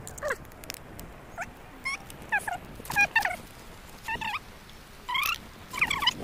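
A series of short, high, wavering animal calls, repeated every half second to a second.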